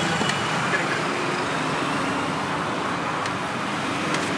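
Steady roadside traffic noise, with a few faint clicks.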